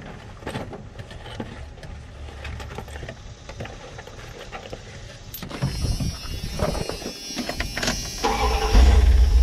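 A flood-drowned pickup truck's engine running rough just after being restarted, with an irregular knock that the owners take for a rod or piston. Near the end a much louder low rumble sets in.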